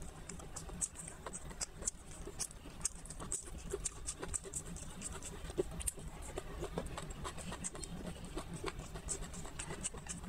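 Close-up chewing and wet mouth clicks of someone eating a rolled thin pancake wrap, with irregular small crackles and clicks over a low steady hum.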